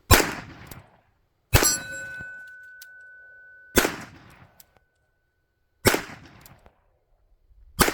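Five revolver shots, about two seconds apart. After the second shot a steel target plate is hit and rings with a steady metallic tone for about two seconds.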